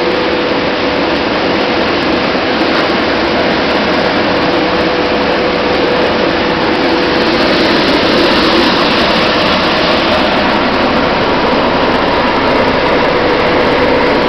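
Quinoa seed cleaning machine running: loud, steady machine noise with a constant hum, as its vibration motors shake the machine and seed pours out of the outlet chute.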